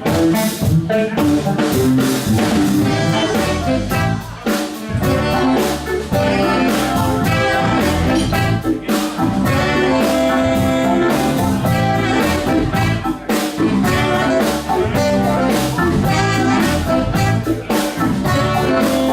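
Live band playing an instrumental intro in a blues-jazz style, with drum kit, bass, electric guitar, keyboards and saxophones, and held horn notes coming in partway through.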